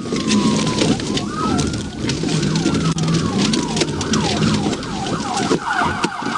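Police patrol car's electronic siren wailing in a slow rise and fall, with faster falling yelp sweeps over it, switching to a rapid high warble near the end, over the car's road noise during a pursuit.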